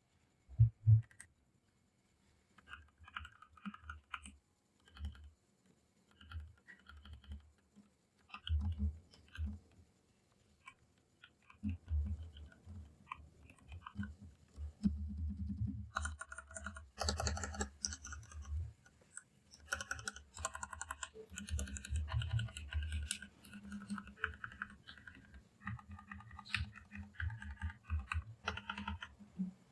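Mechanical keyboard with Fantasy Virus switches being typed on: scattered single keystrokes at first, building to fast continuous typing about halfway through.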